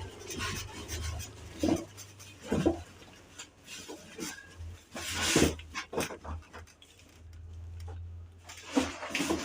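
Scattered knocks and clatters of objects being handled, loudest about a second and a half in, near the three-second mark and about five seconds in, over a steady low hum.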